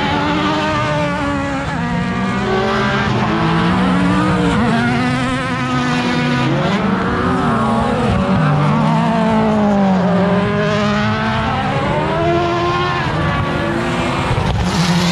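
Several autocross race cars racing together on a dirt track, their engines revving hard and changing gear, so that overlapping engine notes rise and fall again and again.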